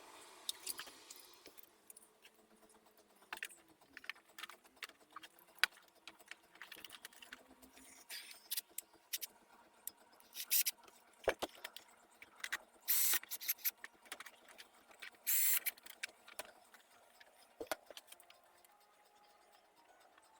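Small metal hardware being handled, clinking and rattling in scattered clicks, with a few louder jangles in the middle stretch.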